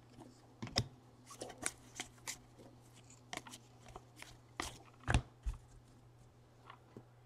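2017 Panini Elite Draft football trading cards being handled and flipped through by hand: scattered light clicks, taps and slides of card stock, with a louder knock about five seconds in.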